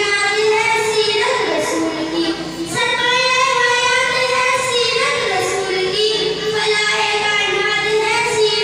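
A boy singing a naat solo, in long held notes with short breaks between phrases.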